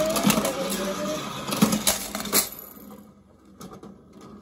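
Plastic toy dispenser being cranked and a die-cast toy car dropping out, clattering down its chute into a tub of water beads: a few sharp clicks in the first two and a half seconds, with a brief gliding tone in the first second, then it goes quiet.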